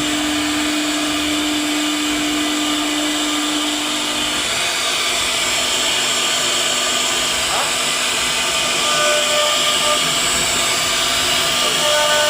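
CNC router spindle running and cutting wood, a loud, steady motor whine over cutting hiss. The low steady tone drops out about four and a half seconds in while the hiss goes on.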